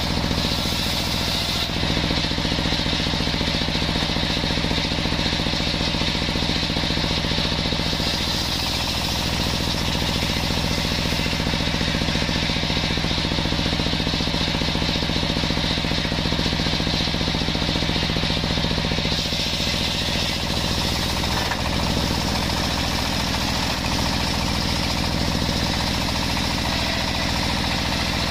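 Large table-mounted circular saw running steadily, its blade sawing lengthwise through jackfruit-wood slabs, with the pitch and hiss shifting as the cut loads and eases.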